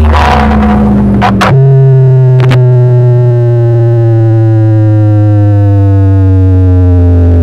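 Very loud electronic DJ track blasting from a truck-mounted stack of horn loudspeakers: a deep bass drone under a synthesizer tone that steps down about a second and a half in, then glides slowly lower in pitch, with two sharp clicks early on near the change.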